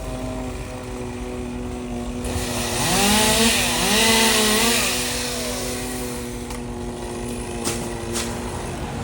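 Chainsaw revving up and dropping back twice, about three and four seconds in, over a steady engine hum; two sharp clicks near the end.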